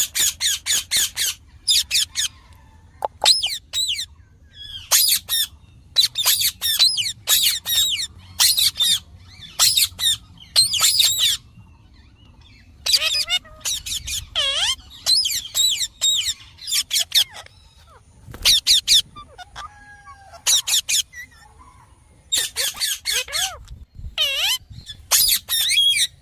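Indian ringneck parakeet calling in rapid bursts of shrill, high screeches, several quick calls to a burst, with short pauses between bursts and a few lower, wavering calls mixed in.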